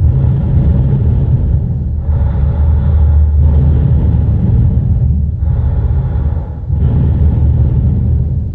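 Party horn blown in a series of long, low, buzzing blasts, each a second or two long, fading away near the end.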